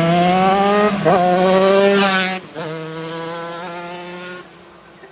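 Shifter kart with a Honda CR125 two-stroke single-cylinder engine, accelerating hard at full throttle. Its pitch climbs and drops back twice as it shifts up. About two and a half seconds in it passes and drops to a lower, quieter steady note that fades away down the street.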